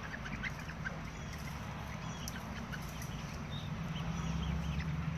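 Young chickens, about a month old, giving many short, scattered high chirps as they are being caught in their pen. A low steady hum grows louder from about four seconds in.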